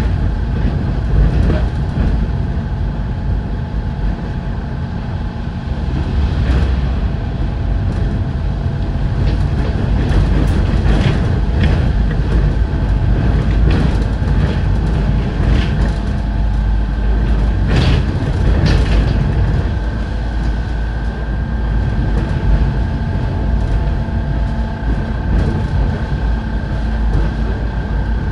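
Optare Solo SR single-decker bus driving, heard from inside the cabin: a steady diesel engine drone and road rumble with a thin steady whine, growing stronger in the second half, and scattered short rattles and knocks from the bodywork.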